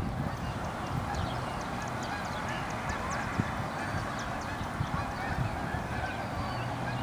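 A dense chorus of many birds calling at once, with many short high chirps over a continuous chatter.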